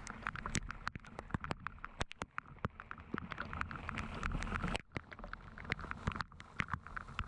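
Rain falling, with many irregular sharp ticks of drops striking close by over a steady hiss.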